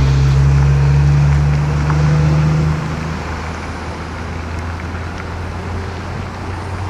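An electric-hauled train running on the line: a steady rumble with a low hum that drops off about three seconds in, leaving a quieter, even rumble.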